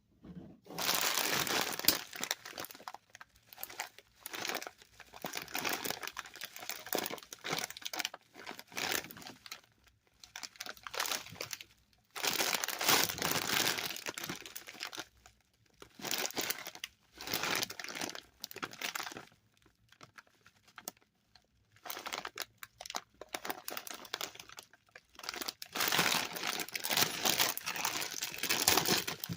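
Packaging of a value-size bag of cough drops crinkling as it is handled and opened, in irregular bursts with short pauses between them.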